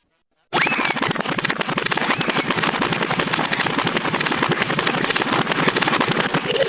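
Cartoon sound effect: a loud, dense rattle of rapid pops like a string of firecrackers going off, starting about half a second in, with two short squeaky whistles falling in pitch in its first two seconds.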